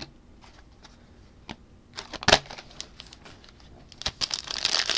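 Trading cards being handled, with light ticks and a sharp click a little after two seconds, then a foil card-pack wrapper crinkling, growing louder near the end as the next pack is opened.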